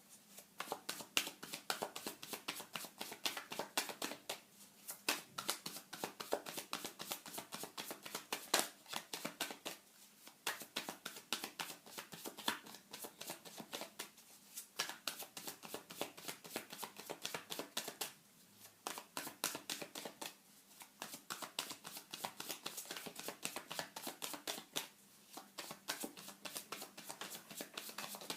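Tarot cards being shuffled by hand: runs of rapid crisp clicks and flicks of card on card, broken every few seconds by brief pauses.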